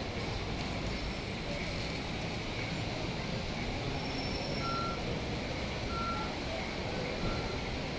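City street traffic running steadily, with a few short electronic beeps at one pitch in the second half.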